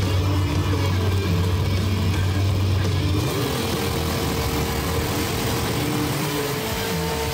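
Mud drag racing vehicle engines running at the start line. A steady low engine drone gives way about three seconds in to a rising, higher engine note that then holds steady.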